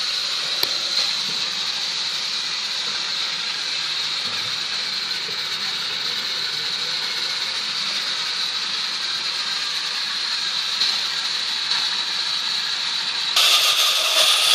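Steady rushing noise without any clear rhythm or pitch. About a second before the end it cuts abruptly to a louder, busier sound.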